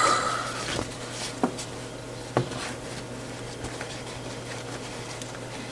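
Handling noise from a herringbone fabric newsboy cap being turned over and moved on a wooden table: soft rubbing with a few light knocks in the first couple of seconds, over a steady low hum.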